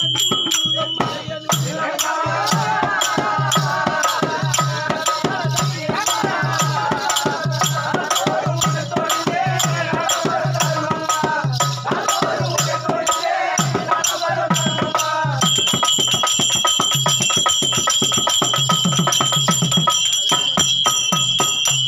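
Therukoothu accompaniment music: a drum and jingling percussion keep a fast, steady beat while a reed instrument plays a wavering melody, which drops out about fifteen seconds in and leaves the drum and percussion going.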